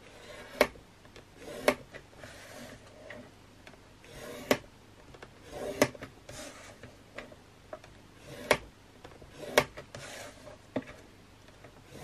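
Scoring stylus drawn along the grooves of a plastic scoring board (Vaessen Creative Score Easy) to score photo card. Soft scraping strokes alternate with sharp clicks and taps every second or two as the stylus and card are set against the board and the card is turned.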